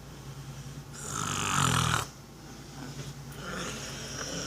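A sleeping person snoring: one loud, rasping snore starts about a second in and lasts about a second.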